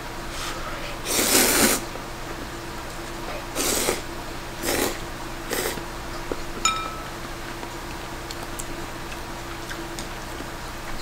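Ramen noodles being slurped from a bowl in several short bursts, the loudest about a second in. A sharp, ringing clink of chopsticks against the ceramic bowl follows about two-thirds of the way through.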